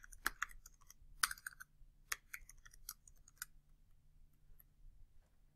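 Computer keyboard being typed on: quick, irregular key clicks that thin out after about three and a half seconds.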